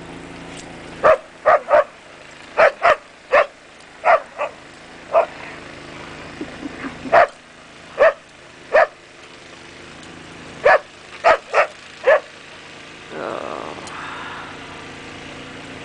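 Dog play-barking in the snow, about sixteen short barks in quick clusters of two or three, over a steady engine hum.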